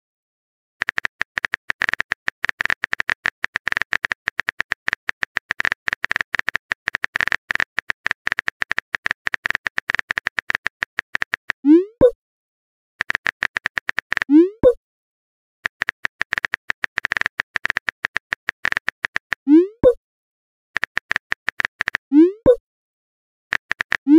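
Phone-keyboard typing sound effect: long runs of rapid clicks, each run ending in a short rising pop as a message is sent. The pop comes about halfway through and four more times near the end.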